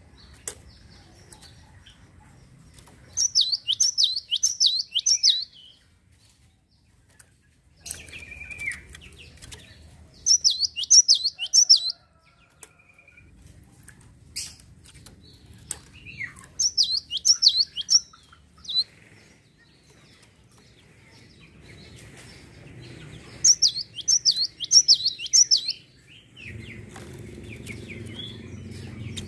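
Java sparrow singing in four bursts of quick, repeated descending chirps, each about two seconds long and some six seconds apart, with a few sharp clicks between them.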